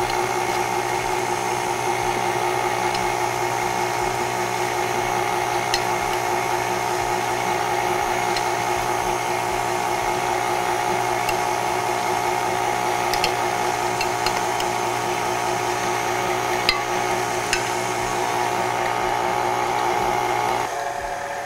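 Electric mixer motor running steadily as it beats cake batter while flour mixture is added gradually, with a few faint clicks. Near the end it drops in pitch and level, as the speed is turned down.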